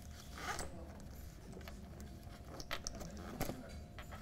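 Scattered small clicks, knocks and rustles of things being handled at a lectern, over a low steady hum of room noise.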